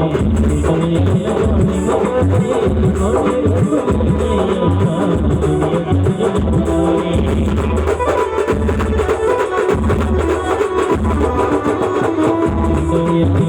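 Loud star band music: a steady, pulsing drum beat under a continuous melody line, playing a devotional aarti tune.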